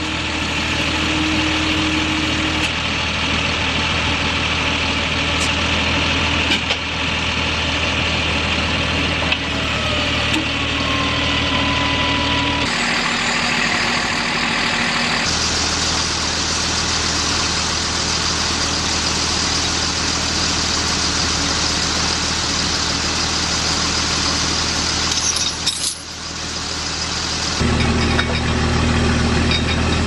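Heavy military trucks' engines idling and running, a steady mechanical drone that changes abruptly several times where separate clips are cut together.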